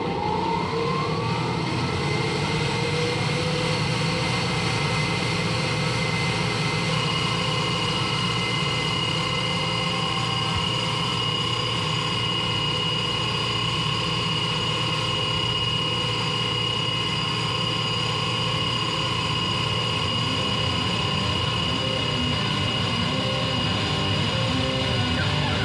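A steady, engine-like rumbling drone with a faint rising tone in the first couple of seconds and a high steady whistle joining about seven seconds in: the sound-effect intro of a rock music video's soundtrack.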